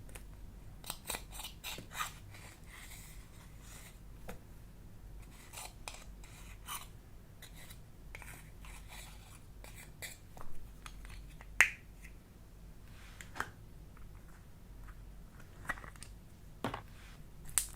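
Hands working slime mixed with clay: scattered small sticky clicks, pops and crackles, with a few louder sharp clicks in the second half.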